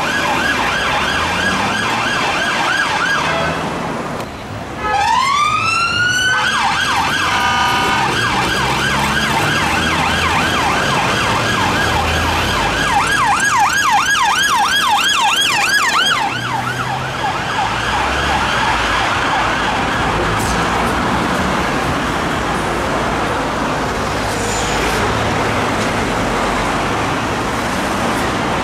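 Police car siren switching between fast yelp sweeps and a slow rising wail, with a brief blast of its bull horn a few seconds in. After about 16 seconds the siren grows fainter and mixes with general road traffic noise.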